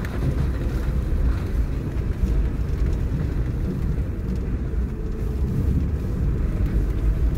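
A car on the move, its engine and tyre noise making a steady low rumble.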